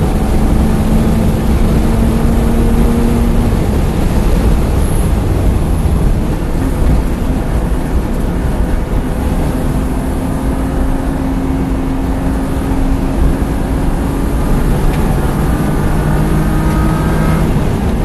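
BMW E36 engine heard from inside the cabin at track speed, with heavy road and wind noise. The engine note holds fairly steady through a corner, then rises in pitch as the car accelerates near the end.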